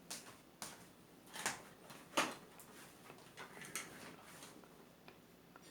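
Faint, scattered light clicks and knocks, about a dozen irregular taps, the loudest a little over two seconds in.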